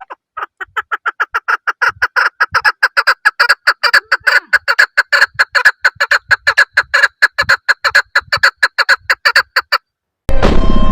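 A bird calling in a long, rapid series of short, evenly spaced notes, about seven a second, that stops abruptly about a second before the end.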